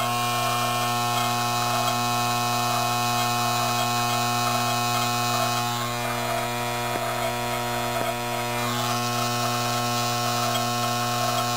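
Homemade three-phase induction motor's stator coils on transformer-iron cores, energised with AC: a loud, steady electrical hum with many overtones. The rotor is only being driven weakly, because the flux must cross the rotor from one coil to the next.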